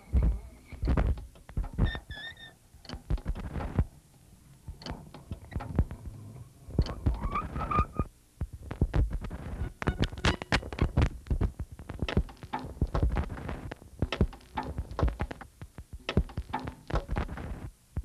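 Irregular knocks and low thumps, with a few brief pitched squeaks or notes among them, dense in the second half.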